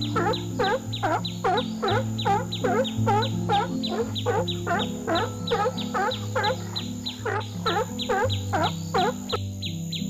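Rapid, evenly repeated bird-like chirps, about three a second, each dipping down and back up in pitch, over background music with a slow bass line; the chirping stops near the end.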